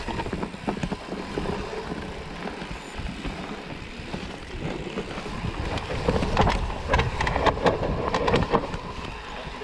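Mountain bike descending a dirt forest trail, heard from the handlebars: wind buffeting the microphone and tyre rumble over the ground, with a busy run of rattling clicks from the bike over bumps in the second half.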